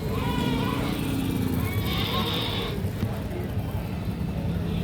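A goat bleats briefly at the start, over a steady low rumble, with a short hiss about two seconds in.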